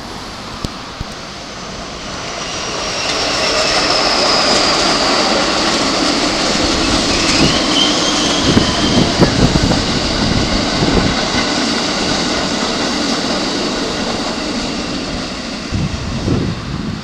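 A Keikyu Line electric commuter train passing on the track: the rumble of wheels and motors swells over the first couple of seconds, holds loud for about twelve seconds with a high, thin whine sliding over it, then fades near the end.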